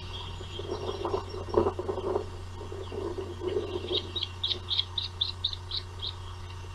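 Osprey giving a quick series of short, high whistled chirps, about nine notes in two seconds, starting about four seconds in. A steady low hum runs underneath, and a few dull low sounds come in the first two seconds.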